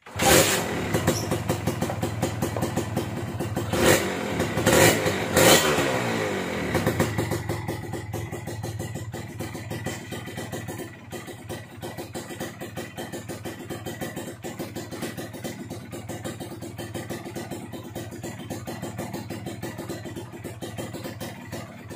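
Kawasaki Ninja 150 RR two-stroke single-cylinder engine on its stock exhaust, kick-started and catching at once. It is blipped three times about four to five and a half seconds in, then settles to a steady idle.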